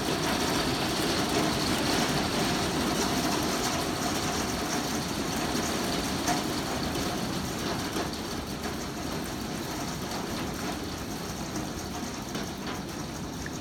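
Heavy hail mixed with rain pelting down, a dense, steady wash of ice striking the ground and yard surfaces that slowly eases a little.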